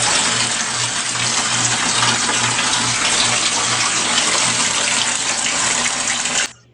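Shower water running into a bathtub: a steady rush of spraying water that cuts off suddenly near the end.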